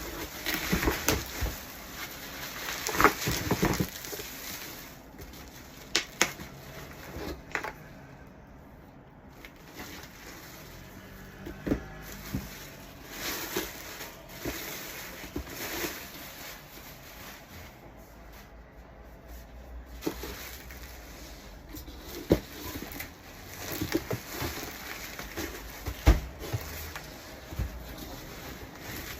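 A parcel being unboxed: irregular rustling of packaging with scattered sharp clicks and knocks as the box and its contents are handled.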